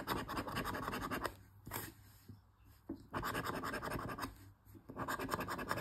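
Scratch-off lottery ticket being scratched, a rapid rubbing rasp in three spells with short pauses between them.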